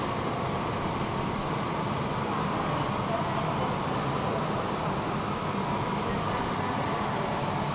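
Steady background noise of an underground metro station: a low drone with hiss throughout, with no distinct events.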